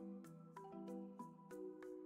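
Soft background music: a light melody of struck notes, about four a second.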